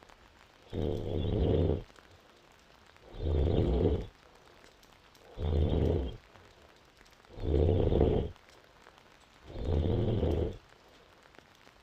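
A woman snoring in deep sleep: five loud, rattling snores about a second long, one every two seconds or so, with quiet breathing between them.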